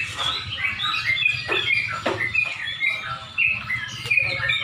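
Several yellow-vented bulbuls (trucukan) singing at once, their chirping phrases overlapping continuously, over a low steady hum.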